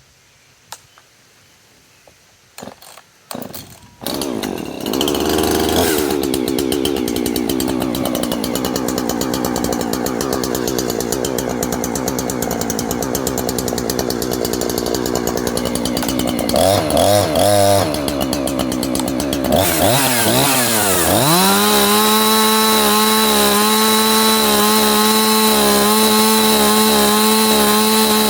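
Husqvarna 350 two-stroke chainsaw starting about four seconds in after a few clicks, then running loud and uneven. About 21 seconds in it revs up and holds steady at full throttle.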